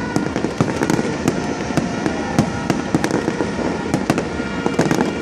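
Fireworks going off in a rapid, irregular run of sharp bangs and crackles, with steady high tones running underneath.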